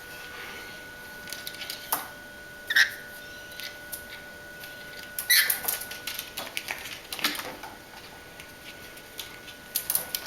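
Pet rainbow lorikeet giving a few short chirps that sweep down in pitch, among light clicks and taps.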